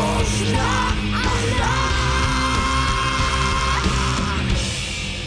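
Live rock band with loud drums and electric guitars playing the closing bars of a song, with one long note held through the middle.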